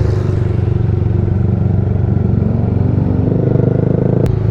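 Motorcycle engine running through an open aftermarket VMAX muffler while riding, its note shifting and rising about three seconds in. A single sharp click near the end.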